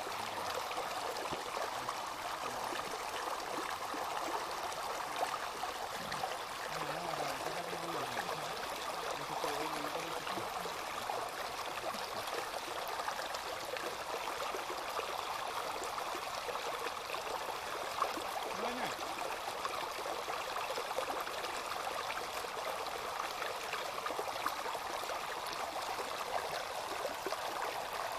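Shallow creek running over rocks in a small cascade: a steady rush of water.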